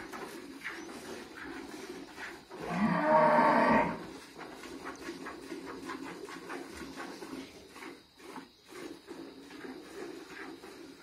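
Cattle mooing: one loud moo lasting about a second and a half, about two and a half seconds in.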